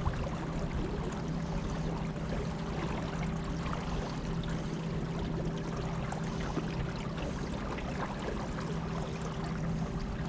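River water rushing and splashing around a moving boat, over a steady low hum.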